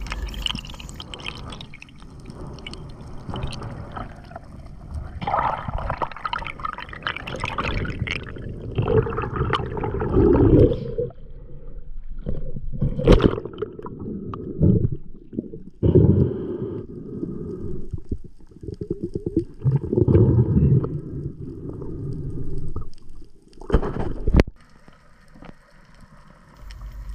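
Muffled underwater water noise and gurgling bubbles from a freediver swimming, heard through the camera underwater, coming in uneven swells with short quiet gaps. Two sharp knocks stand out, one midway and one near the end.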